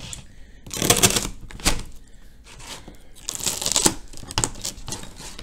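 Large kitchen knife cutting through a crisp fried Korean potato-and-onion pancake on a plate: several crackly cutting strokes, with sharp clicks of the blade against the plate.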